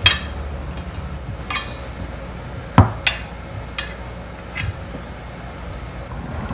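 Steel plate clinking and knocking against the counter and other metal as a fish on it is handled: about six sharp clinks, one heavier knock a little before the middle.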